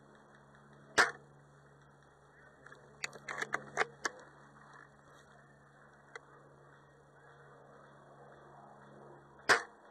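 A scoped airsoft rifle fired single shots, one sharp snap about a second in and another near the end, with a quick run of mechanical clicks and rattles between about three and four seconds in.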